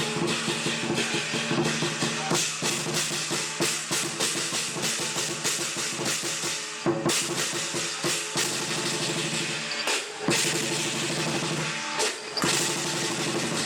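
Lion dance percussion: a big drum beaten in a fast, dense rhythm with clashing cymbals, dropping out briefly twice near the end.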